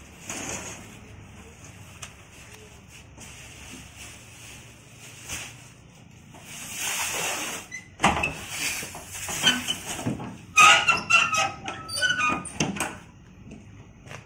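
Cardboard boxes being pushed and set down on a truck's cargo floor, with scraping and knocks, and chickens clucking in a burst of short calls in the latter part.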